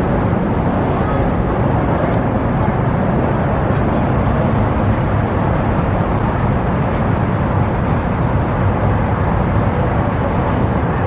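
A converted school bus's engine running steadily close by, a constant vehicle rumble with no change in pace.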